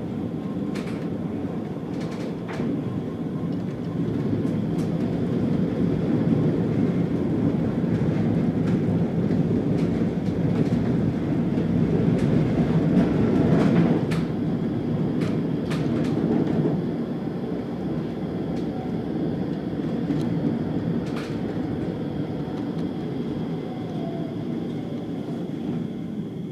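Leoliner low-floor tram running on street track, heard from inside at the rear: a steady rumble of wheels and running gear with scattered sharp clicks. It grows louder toward the middle, then eases off.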